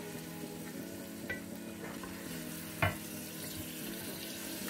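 Beef kofte meatballs sizzling gently as they fry in masala in a pot, stirred slowly with a spoon, over a steady low hum. The spoon knocks sharply against the pot once just under three seconds in, the loudest sound, with a lighter click earlier.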